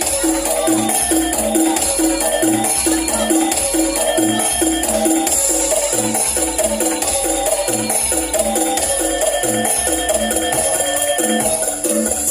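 Percussion-led music: a steady repeating pattern of pitched struck notes, about two to three a second, over a constant high shimmering rattle like shakers or small cymbals.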